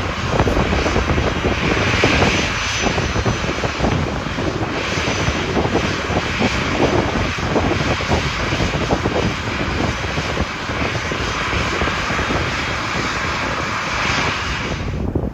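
Boeing 737 jet engines running, a loud, steady noise; the higher part of the sound cuts off abruptly near the end.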